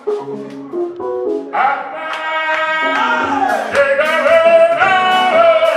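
Live gospel praise music: a few keyboard notes, then a man singing into a microphone from about a second and a half in, with percussion hits coming in about halfway through.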